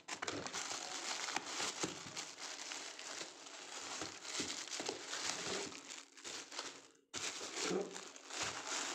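Plastic wrapping crinkling as a new pair of shoes is handled and lifted out of a cardboard shoebox, with continuous rustling and crackling that breaks off for a moment about seven seconds in.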